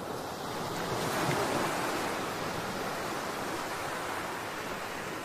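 Ocean waves surging and breaking: a steady rushing wash that swells during the first couple of seconds and then holds.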